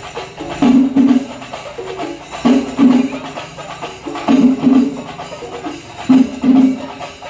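Temple percussion ensemble playing drums in a steady repeating pattern: two heavy strokes close together, about every two seconds, over a continuous busy layer of lighter percussion.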